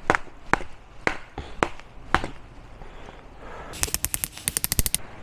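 A baton striking the spine of a Fox Aruru folding knife, driving its blade through holm oak: sharp knocks about two a second, then a pause, then a quick run of lighter rapid clicks near the end.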